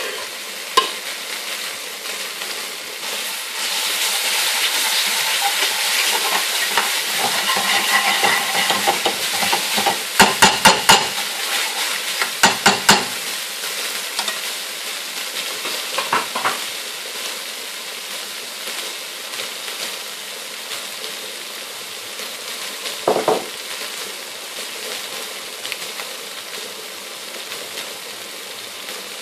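Oil with tomato purée and garlic-ginger paste sizzling in an aluminium pan as a metal chef spoon stirs it. Two quick runs of sharp clicks, about ten and twelve seconds in, are the spoon knocking against the pan.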